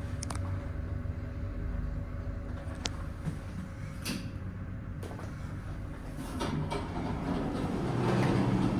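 1999 Fujitec elevator in operation: a steady low hum with a few sharp clicks, and the noise swells over the last couple of seconds, typical of the car's doors sliding.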